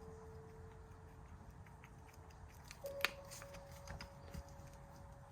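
Quiet handling of small metal machine parts: a sharp click about three seconds in and a few lighter ticks, over a faint steady hum that steps up in pitch at the click.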